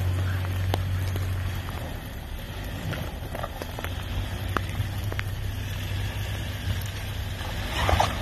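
Two-door Jeep Wrangler's engine running at a steady low drone as it crawls slowly over a muddy, rocky trail, with scattered sharp clicks and a louder rush of noise near the end.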